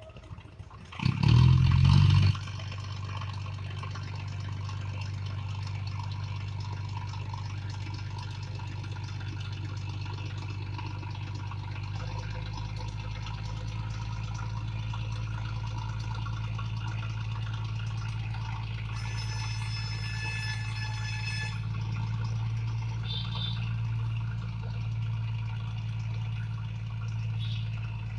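Diesel engine of a river vessel running with a steady low drone. A loud burst comes about a second in, and a brief high-pitched tone sounds about two-thirds of the way through.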